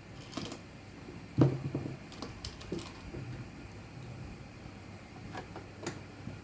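Scattered clicks and knocks of a PSU's metal case being handled while its screws are put in, with one louder knock about a second and a half in.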